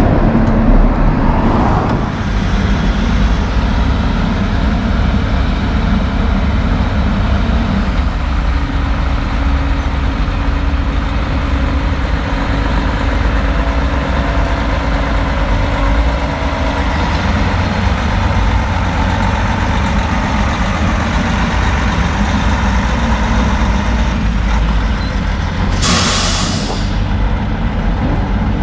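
A loaded Kenworth T800 log truck passes briefly, then heavy diesel engines run steadily as a CAT log loader works over the parked truck. A short loud hiss comes near the end.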